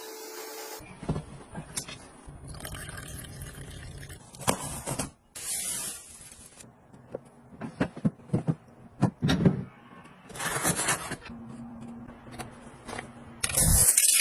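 Household handling noises: scattered clicks and knocks, with three short bursts of rushing, hissing noise, one about five seconds in, one past ten seconds and one near the end.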